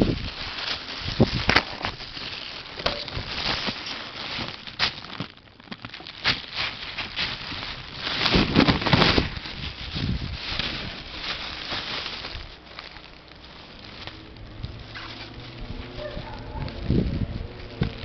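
Plastic bag crinkling and rustling in irregular bursts as ferrets burrow and tumble in it, loudest about halfway through.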